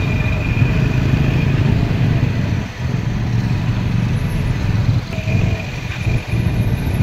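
Motorcycle riding in city traffic: a steady engine and road noise with a heavy low rumble, dipping briefly a few times.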